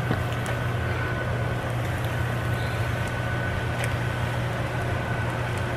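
Steady low hum with an even hiss over it, like a kitchen appliance or fan running.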